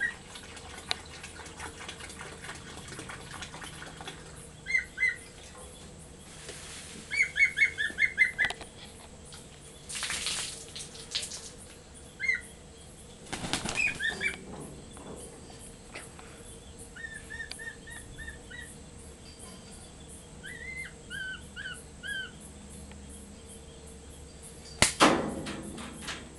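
Black-and-white hawk-eagle giving runs of short, high chirping calls, one quick run of about seven notes, with short bursts of wing flapping between them. A loud sharp thump comes near the end.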